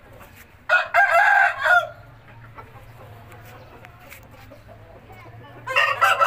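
Rooster crowing twice, each crow about a second long: once near the start and again near the end.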